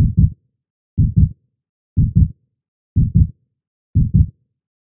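Heartbeat sound effect: a steady double thump, about one beat a second, five beats in all, with silence between them.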